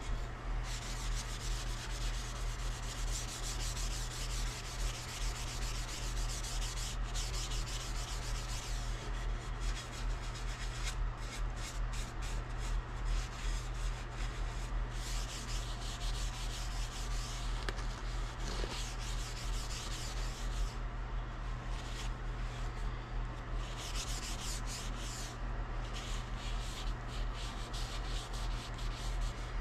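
A rag rubbing oil into a cherry wood axe handle: continuous back-and-forth strokes of cloth on wood, the used motor oil being worked in as a finish. A low steady hum runs underneath.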